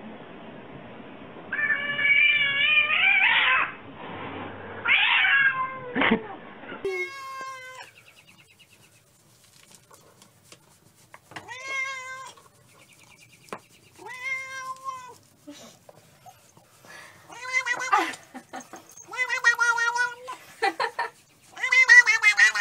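Domestic tabby cats meowing. There are two loud, drawn-out meows in the first few seconds, then a run of repeated meows a couple of seconds apart, the last ones wavering.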